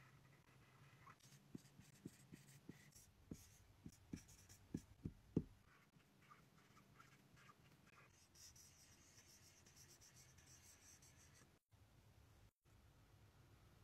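Whiteboard marker writing on a whiteboard, faint: a run of sharp taps of the tip on the board, growing louder through the first half, then a stretch of light scratchy gliding strokes.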